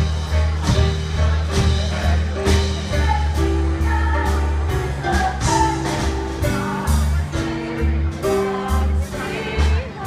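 Live band playing a brassy show tune with strong bass and drums, with a woman singing over it through the stage speakers.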